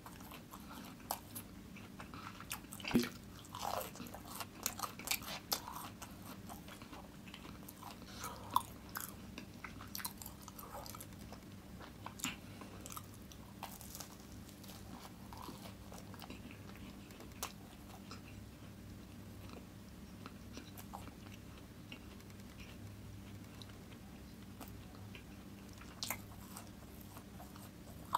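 Close-miked biting and chewing of a crisp fried vade: crunchy bites come in clusters, mostly in the first dozen seconds with one more near the end, with quieter chewing between, over a faint steady low hum.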